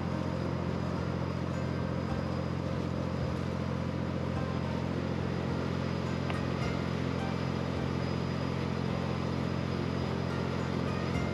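Speedboat engine running steadily under way, a constant low drone, with water rushing and churning in the wake along the hull.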